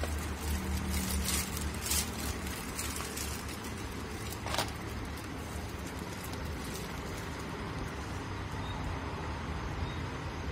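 Clear plastic wrapping crinkling as a plastic penguin wall shelf is pulled out of its bag and handled. There are a few crackles in the first two seconds and a sharper one about halfway, over a steady low hum.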